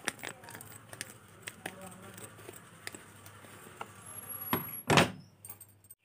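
A paper sachet of Samsung afresh descaler powder and its cardboard box being handled, with small clicks and crinkles throughout and a louder burst of noise about five seconds in.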